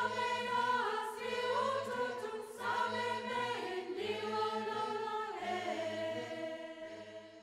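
Choir singing slow, held chords as closing music, fading out at the end.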